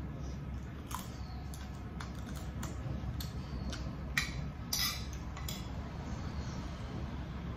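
Metal spoon clinking and scraping on a plate during eating: scattered sharp clicks, the loudest two about four to five seconds in, over a steady low hum.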